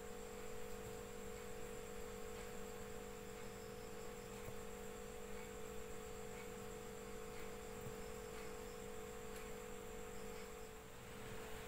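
A steady faint hum of a few constant tones over light background hiss.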